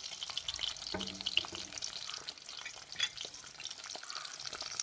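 Pieces of green plantain frying in hot oil in a pot, crackling steadily, while a fork turns them. A couple of sharper clicks of the fork against the pot come about a second in and again about three seconds in.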